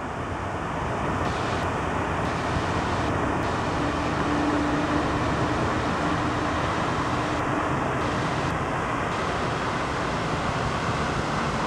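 Steady rushing roar of a large lake fountain's water jets falling back onto the water, heard from across the lake.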